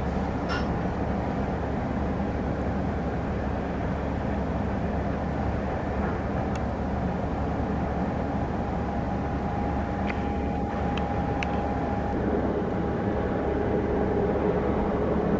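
IAR 330 Puma helicopter's main rotor and twin turboshaft engines running in low flight, a steady mechanical drone. A steady whine comes in about halfway, and the sound grows slightly louder near the end.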